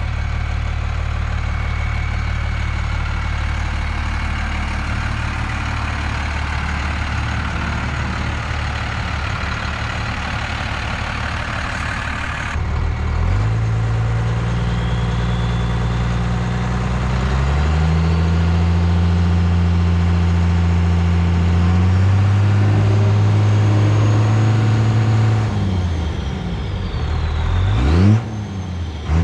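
Turbocharged 5.9-litre inline-six Cummins diesel of a first-generation truck running, with a turbo whistle over the engine note. The engine note steps up in pitch several times, and near the end the engine is revved, its note and the whistle falling and rising again.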